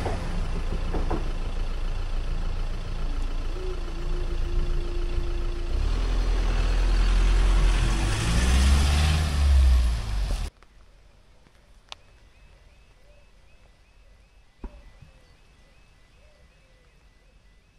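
Engines and tyre noise from the departing train and the road traffic at a level crossing: vehicles pull away and drive over the crossing as the barriers lift, one passing close about nine seconds in. About ten seconds in the sound cuts off suddenly to a much quieter scene with two sharp clicks and a faint chirp repeating a few times a second.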